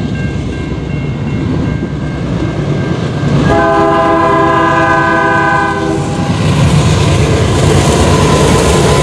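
A CN freight train approaching with a steady rumble of locomotive and wheels, then one long horn blast lasting about two and a half seconds from about three and a half seconds in. The rumble grows louder near the end as the locomotives draw level.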